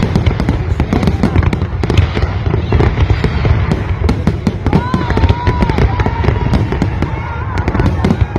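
Fireworks display: a dense, continuous barrage of bangs and crackles over a steady low rumble, with a wavering whistle-like tone over it in the second half.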